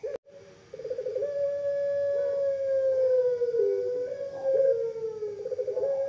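Long-voiced puter pelung (Barbary dove) cooing. After a stuttering start about a second in comes one long drawn-out coo that slowly sinks in pitch, broken by short catches and a rise near the end.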